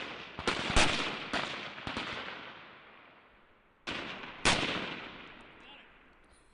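M16 rifles on a firing range, firing single shots at irregular intervals from several firing points: about half a dozen sharp cracks, each trailing off in a long echo.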